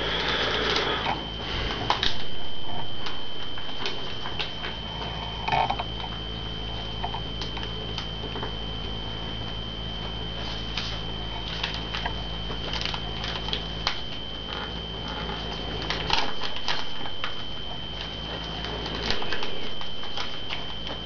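Paper crinkling and rustling in irregular short crackles as a sheet of origami paper is folded and creased by hand, over a steady high-pitched whine and a low hum.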